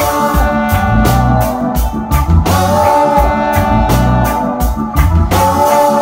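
Live reggae band playing loudly: electric bass notes and a drum kit keep a steady, regular beat under held organ chords and saxophone and trombone lines. New held notes come in about halfway through and again near the end.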